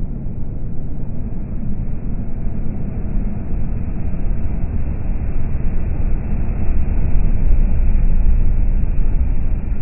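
DAF XF articulated lorry driving past at motorway speed: a steady rumble of engine and tyres that swells as it comes close, loudest about seven to eight seconds in.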